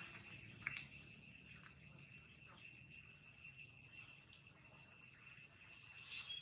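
Faint, steady high-pitched drone of insects, with a few brief faint chirps over it.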